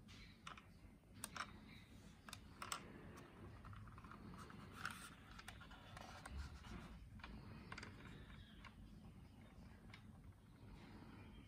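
Near silence with faint handling noise: small clicks and rustles of a plastic scale aircraft model being turned over in the hand, the clicks clustered in the first few seconds.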